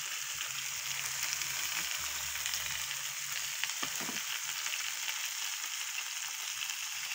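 Pollock pieces frying in oil in a stone-coated grill pan, freshly turned over: a steady sizzle with occasional faint crackles.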